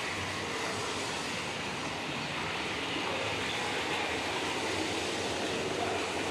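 Electroacoustic sound-art piece: a steady, dense rushing noise with faint tones drifting in the middle range.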